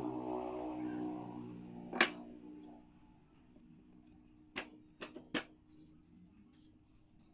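A low voice-like hum for the first two seconds or so, then sharp knocks in wood: one loud knock about two seconds in and a quick run of three or four lighter knocks around five seconds in, as wooden chair parts are tapped together during assembly.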